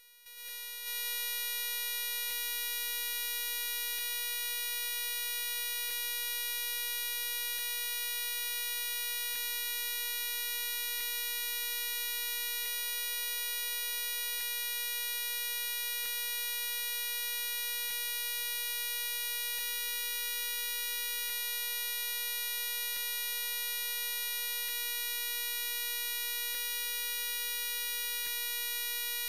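Steady electronic buzzing tone with many overtones, swelling up within the first second and then holding constant, with faint ticks repeating about every second and three-quarters.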